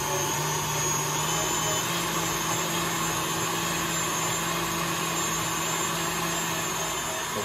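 KitchenAid stand mixer running steadily on high speed, its wire whisk beating heavy cream that is starting to turn to butter: a constant motor whine with the whisk churning the cream.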